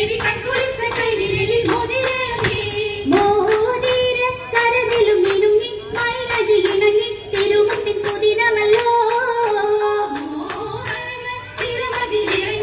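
An oppana song: a woman's voice singing the Mappila melody through the stage's PA loudspeakers, over a steady rhythm of hand claps from the dancers.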